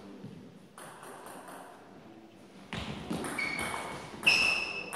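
Table tennis rally starting a little past halfway: a quick series of sharp knocks as the ball is hit back and forth off bats and table. Short high-pitched squeaks sound among the hits.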